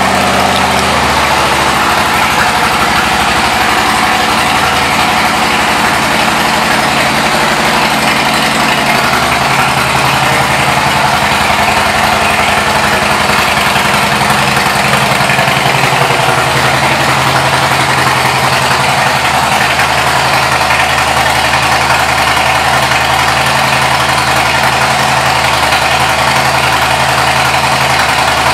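Harley-Davidson Softail Deluxe V-twin idling through Python aftermarket pipes, just after starting. The idle wavers during the first half, then settles and holds steady.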